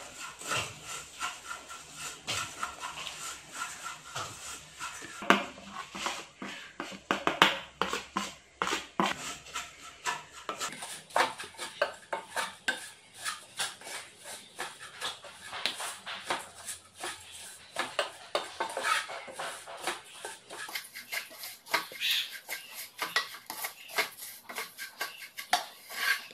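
Slotted wooden spatula scraping and tapping against a nonstick pot as grated coconut is stirred while it dry-roasts to brown. The scrapes and taps come quickly and irregularly.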